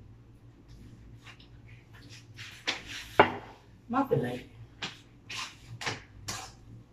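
Metal ladle clinking and scraping against a wok, a run of short sharp clicks starting about two seconds in, the sharpest about three seconds in.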